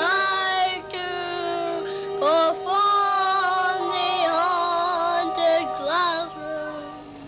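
Children singing a tune, with held, wavering notes and swoops in pitch; it fades near the end.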